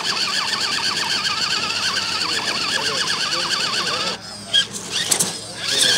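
Radio-controlled rock crawler's electric motor and drivetrain whining under load as it climbs a boulder. Its pitch wavers quickly up and down with the throttle, and it cuts off abruptly about four seconds in, followed by a few light clicks.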